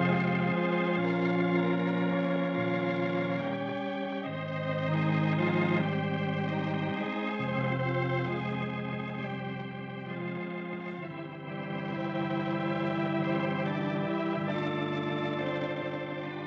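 Organ playing slow, held chords as a radio program's closing music.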